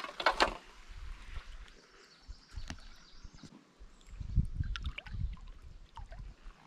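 Small river's water gurgling and trickling, with a few light clicks and low rumbles on the microphone about a second in and again after about four seconds.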